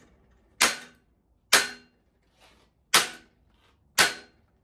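A red mallet striking 16-gauge sheet steel clamped in an angle-iron bending brake: four sharp blows about a second apart and a faint tap between the second and third, each with a short metallic ring. The panel is being hammered over the brake edge to bend it.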